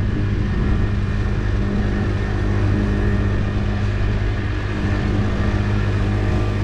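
Outboard motor running steadily at cruising speed, a constant low hum with no change in pitch, over water rushing along the hull of a small fishing boat.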